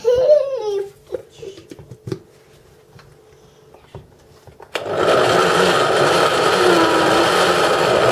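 Countertop jug blender switched on about five seconds in, running steadily as it blends banana pieces with a little cream; the owner calls it a very weak blender. Before it starts, a short voice at the start and a few light clicks.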